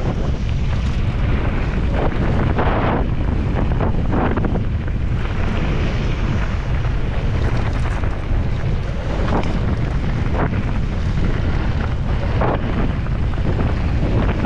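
Wind buffeting the action camera's microphone as a mountain bike runs fast down a loose gravel road at about 45 km/h, with the hiss and crunch of knobby tyres on the gravel. Several brief knocks and rattles come from the bike going over stones.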